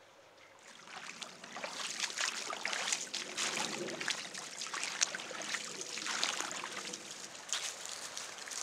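Footsteps through dry grass and leaf litter: a dense run of crackling, rustling steps that starts about a second in, after a near-quiet opening.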